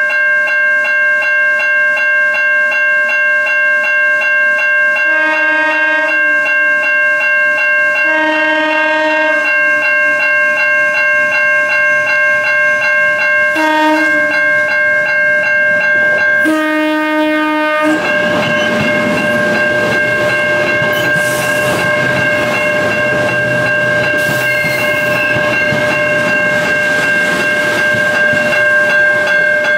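A grade-crossing bell rings steadily while a New Jersey Transit Arrow III electric multiple-unit train approaches, sounding its horn in the crossing pattern of two long blasts, a short one and a long one. After the last blast, about 18 seconds in, the train passes close by with a rush of wheel and rail noise.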